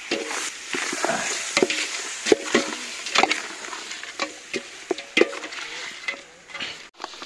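Long metal spatula scraping and knocking against a large metal cooking pot as mutton is stirred into frying spices, with a brief metallic ring after many strokes. A steady sizzle of the meat frying runs underneath.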